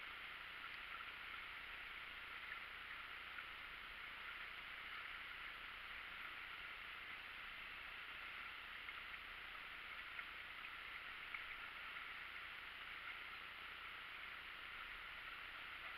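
Steady rush of river water around an inflatable raft, with a few small knocks and splashes from paddles.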